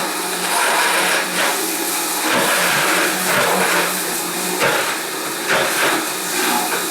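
Countertop blender running steadily, churning a thick cashew and young-coconut cream sauce as olive oil is added, its motor sound wavering slightly as the mixture turns over.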